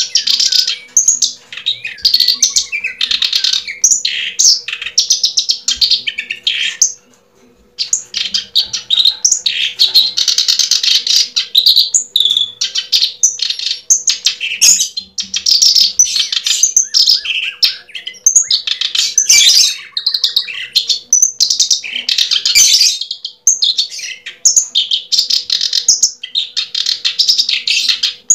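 A bird chirping and twittering almost without pause, in quick high runs of notes, over a faint steady hum.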